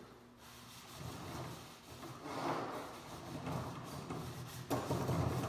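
Handling noise as a skinned gray wolf hide is lifted and moved over a folding table: rubbing and shuffling, with a sudden louder knock shortly before the end.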